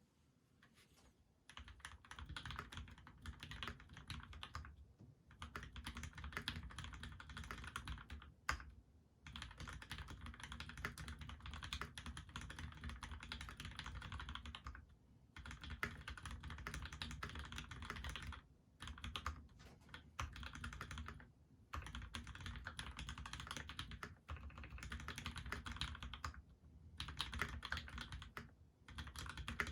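Typing on a Monstargear PC XO mechanical keyboard with a brass plate, Krytox-lubed Gateron Ink Black linear switches and GMK keycaps. It is a dense run of keystrokes in bursts, broken by short pauses every few seconds, and starts about a second and a half in.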